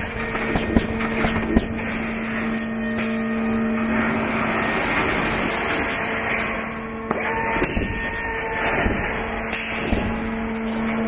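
Schlatter MG700 fence-mesh welding system running: a steady machine hum and noise, with several sharp knocks in the first couple of seconds.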